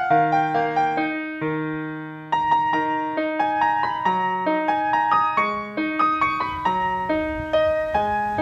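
Background piano music: a gentle melody of single struck notes moving over a steady, repeating lower accompaniment.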